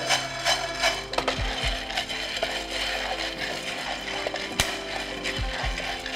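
A wooden spatula stirs roasting coffee beans in a nonstick frying pan, the beans rattling and scraping, with a few sharp pops of first crack. Background music with held notes plays underneath.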